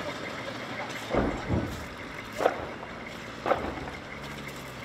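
Engines of Humvees and an armoured bulldozer running, with four sharp bangs in the first three and a half seconds.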